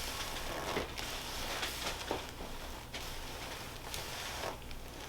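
Soft rustling and handling noise of hands working on a person's body, with a few faint clicks, over a steady low room hum.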